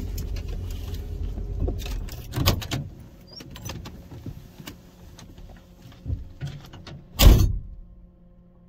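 Low vehicle rumble for about two seconds, then scattered clicks and knocks, and one loud thump about seven seconds in.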